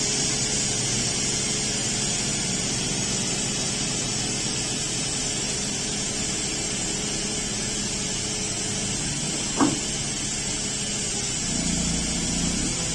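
Engine of a large tire-handler forklift running steadily, with a hiss over it; a single brief sharp sound about two-thirds of the way through, and the engine picks up slightly near the end.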